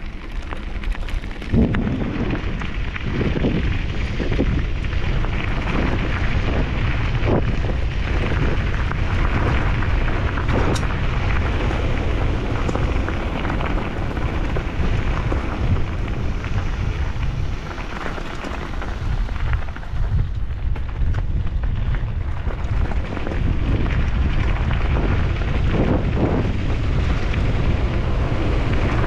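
Heavy wind noise on the microphone and knobby mountain-bike tyres crunching over loose gravel at speed, with scattered knocks and rattles from the bike over stones.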